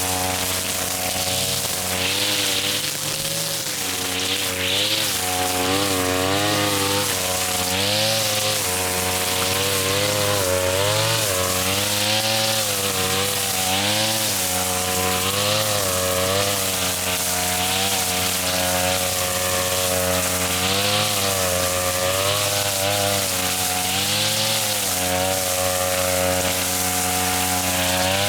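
Small petrol engine of a grass-cutting machine running hard, its pitch sagging and recovering every second or two as it bites into thick grass, with a swishing hiss of cut grass at each dip.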